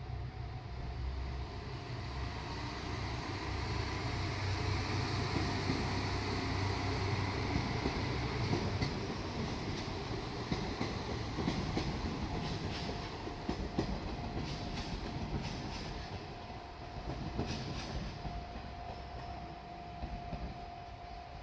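A diesel railcar passing at close range: its engine runs with a low, steady rumble, and the wheels click sharply over rail joints in the second half. A steady thin whine comes in near the end.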